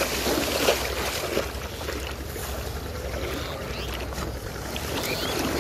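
River water splashing and churning as people wade and lunge through it. The splashing is heaviest in the first second or so, then settles into softer sloshing.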